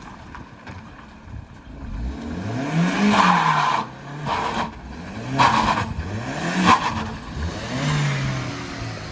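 A car engine revved hard about four times, the pitch climbing and dropping back each time, with a burst of noise at the top of each rev.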